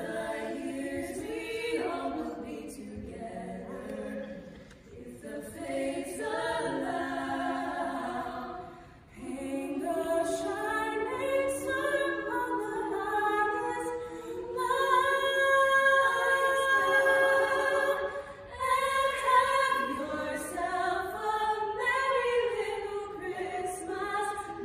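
Three women's voices singing a cappella in close harmony, with long held chords. The singing drops away briefly about nine seconds in, and the fullest, loudest held chords come about two-thirds of the way through.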